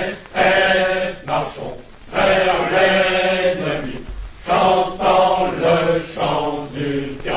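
Male singing: a slow song in phrases of long held notes, broken by short pauses.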